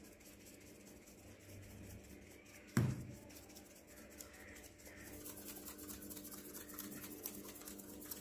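Faint rustling and scratching as rangoli colour powder is shaken from small plastic bottles onto a tile floor, with one knock about three seconds in.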